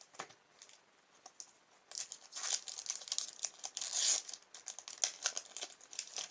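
Foil wrapper of a Pokémon booster pack crinkling and tearing as it is opened by hand. A few light clicks come first, then dense crackling rustle from about two seconds in.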